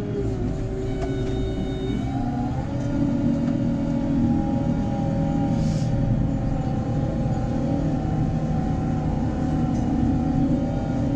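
JCB Fastrac 4220's six-cylinder diesel engine running under load while ploughing, a steady drone whose pitch steps up about two and a half seconds in as the revs rise, then holds.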